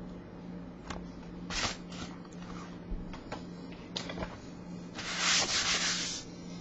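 Quick rubbing strokes made by hand. A few short rubs and light taps come first, then a denser, louder run of rapid strokes about five seconds in that lasts about a second.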